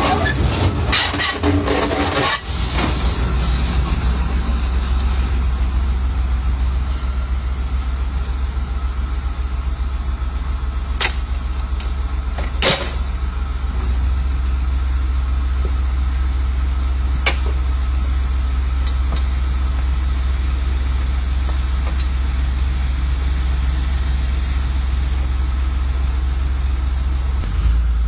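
Rail crane's engine running with a steady low drone as the crane moves slowly along the track. The first couple of seconds are rougher and hissier as it passes close. A few sharp clicks come in the middle.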